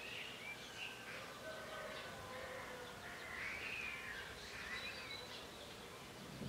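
Birds singing in the early morning: short, high chirping and warbling phrases from several birds, one after another, over a faint outdoor background hiss.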